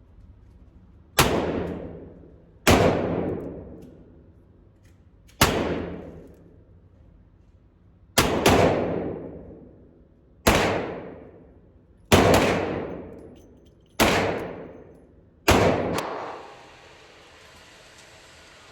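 Revolver fired double action in a slow string, about eight shots a second and a half to three seconds apart, each followed by a long ringing decay.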